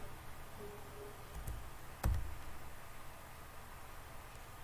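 A single sharp click of a computer key or mouse button about two seconds in, with a fainter click before it, over a low steady hum.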